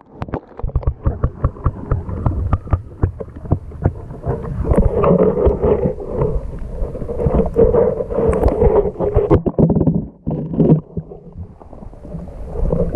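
Water sloshing and churning in a kiddie pool full of water beads, heard muffled through a submerged GoPro, with rapid clicks and knocks close to the camera.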